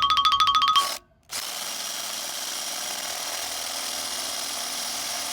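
A power drill runs steadily for about four seconds, turning a screw extractor in a stripped Torx bolt. For about the first second, a fast repeating electronic two-tone pattern plays, then stops.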